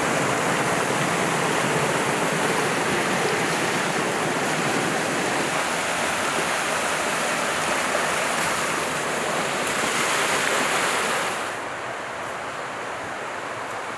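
Small snowmelt stream rushing over mossy cascades: a steady hiss of water that drops to a softer, duller level about three-quarters of the way through.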